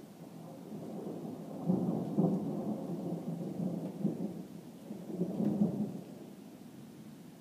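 Thunder rumbling low from a thunderstorm, building about a second in and swelling twice, the second swell near the end.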